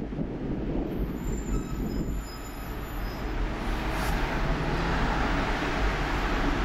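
Steady rumble and hiss of a Tatra T6A2 tram and street traffic at a tram stop, with faint high wheel or brake squeals about a second in.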